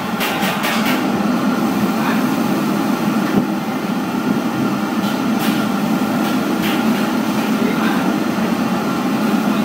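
Steady, loud low rumble of background machinery, with a few light clicks and taps over it.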